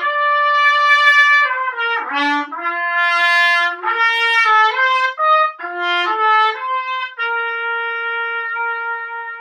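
Solo trumpet playing a phrase of separately attacked notes that move up and down, each note started with a throat 'cough' articulation rather than a firm tongue. From about seven seconds in it settles on one long held note that begins to fade near the end.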